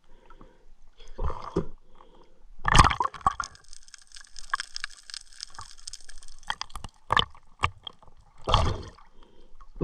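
Water sloshing and gurgling, with several louder splashes, the loudest about three seconds in. A few sharp clicks come about seven seconds in.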